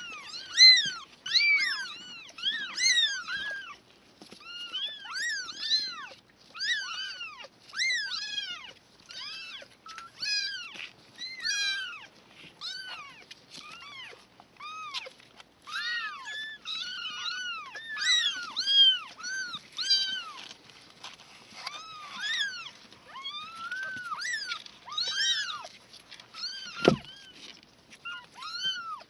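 Several three-week-old kittens mewing continuously in short, high-pitched, arching cries, often overlapping. One sharp knock near the end.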